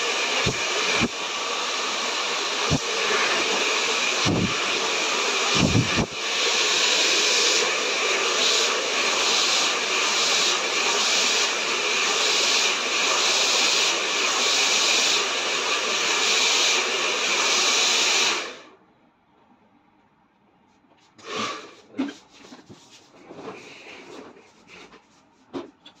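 Handheld hair dryer with a concentrator nozzle blowing steadily at full power, with a few low thuds in the first few seconds. It switches off abruptly about eighteen seconds in, leaving only faint clicks and rustles of handling.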